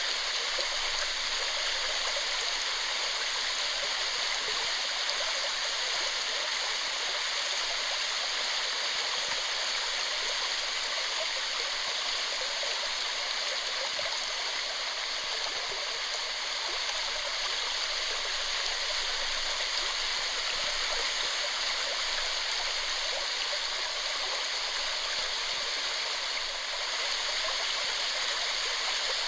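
Waterfall: water falling and rushing in a steady, even roar of noise.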